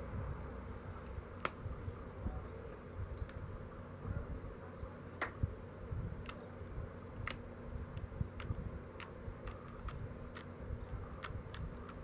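Pressure flaking the edge of an obsidian knife blade: sharp, short clicks as small flakes snap off under a hand-held pressure flaker, irregularly spaced at about one a second and coming faster near the end.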